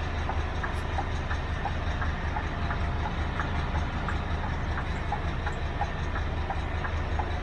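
Diesel engine idling steadily, with a light ticking over it about two or three times a second.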